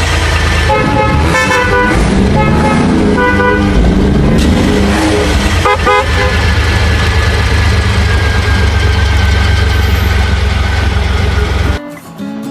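Traffic sound effect: a loud, steady engine rumble with several car horn honks in the first half. It cuts off suddenly near the end.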